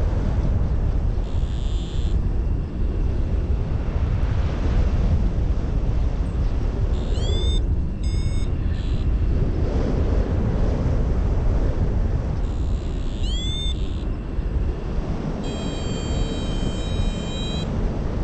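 Wind rushing over the microphone of a paraglider in flight, a steady loud rumble. Over it come a few short high rising chirps about halfway and again later, and a held high tone near the end.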